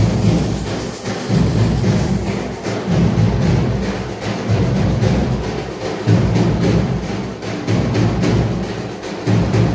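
Loud live drumming: heavy low drum beats about once a second over continuous rapid, sharp stick strikes.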